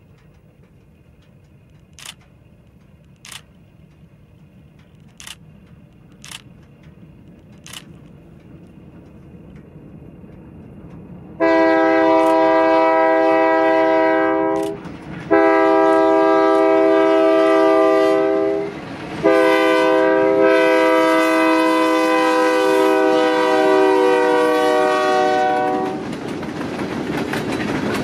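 Freight locomotive's air horn sounding three blasts, two of about three seconds and a longer final one, as the train approaches. Near the end the horn stops and the rising rush and clatter of freight cars rolling past on the rails takes over. A few faint clicks sound in the first several seconds.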